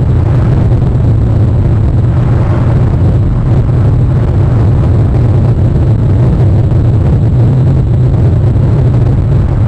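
Loud, steady low rumble of wind buffeting an outdoor webcam's microphone, with no separate events.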